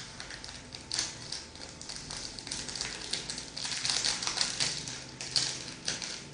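Gelatin powder sachet crinkling and rustling as the powder is shaken out into a bowl: a dense run of small crackles that thickens about halfway through.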